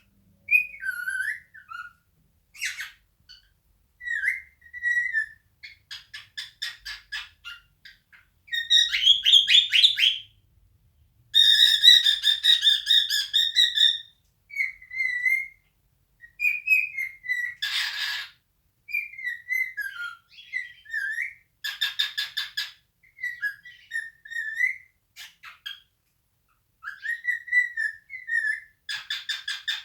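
Male cockatiel singing its natural song: short whistled phrases that glide up and down, alternating with rapid warbling trills and brief pauses, with one harsher note near the middle.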